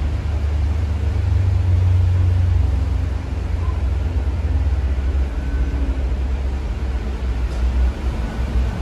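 Cabin noise inside a moving battery-electric articulated city bus: a steady low rumble of the running gear and road, with a faint whine now and then.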